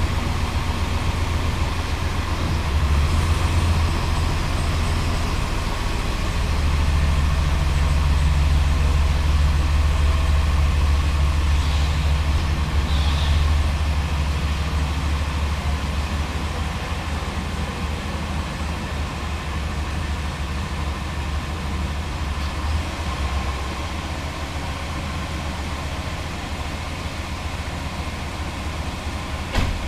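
Freshly rebuilt Gen VI 454 big-block Chevy V8 (7.4 L) running on its first start for ring break-in, idling as the pickup is backed slowly out of the shop. It grows louder for several seconds early on, then fades as the truck moves away toward the door.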